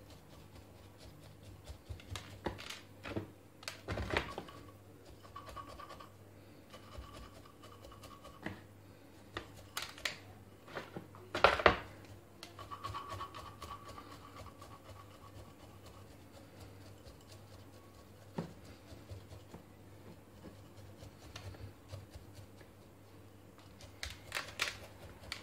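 Gritty bonsai soil mix being poked and worked into a potted tree's roots with a wooden chopstick and fingers: scattered soft scratches and gritty clicks, with a few louder scrapes.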